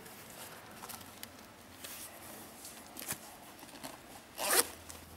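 Quiet handling of clothing and gear with a few small clicks, then a short zip about four and a half seconds in as a tactical vest's front zipper is pulled open.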